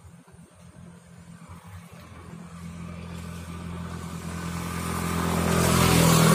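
A motor vehicle engine approaching and passing close by: a steady hum that grows louder over several seconds, with a rush of road noise peaking near the end.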